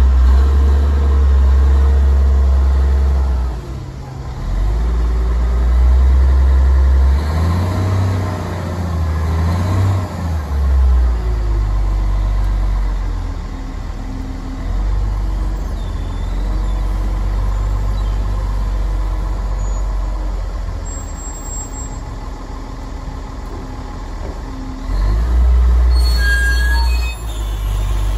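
Caterpillar 980H wheel loader's C15 six-cylinder diesel engine running as the machine drives and works its bucket, revving up and down in several surges. It is loudest in the first few seconds, rises and falls in pitch about eight to ten seconds in, runs steadier through the middle, and swells again near the end.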